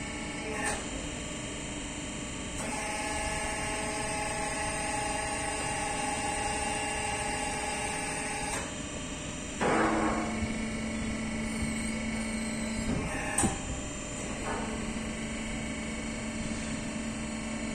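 ATS ELGI truck tyre changer running under the operator's controls: a steady motor whine while the clamping chuck arm tilts down. Around the middle a click switches it to a lower steady hum, which is broken briefly by another click and then resumes.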